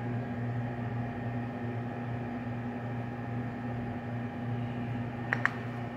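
Steady low electrical hum of a running kitchen appliance, with two faint clicks near the end.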